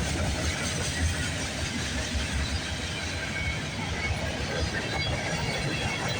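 Freight train cars rolling past on the rails: steady wheel-on-rail noise, strongest low down.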